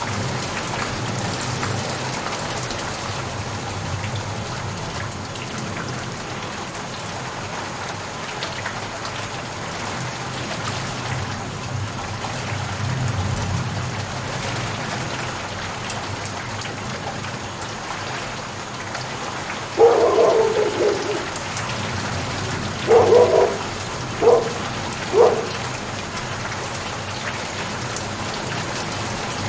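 Steady rain falling, an even hiss of drops. About two-thirds of the way through, four short, louder sounds stand out over it: one lasting about a second, then three brief ones in quick succession.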